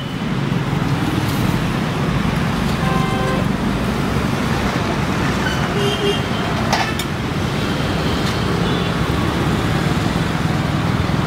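Steady road traffic rumble, with brief horn toots about three and six seconds in and one sharp click near seven seconds.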